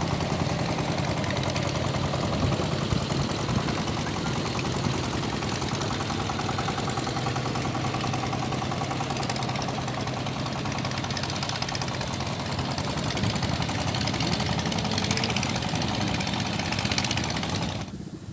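Boat engine running steadily at a low, even chugging pace; it cuts off abruptly near the end.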